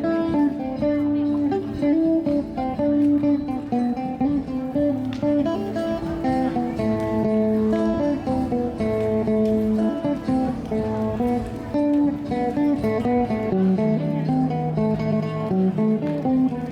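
Guitar music: a plucked melody of held notes moving over a lower bass line, playing steadily.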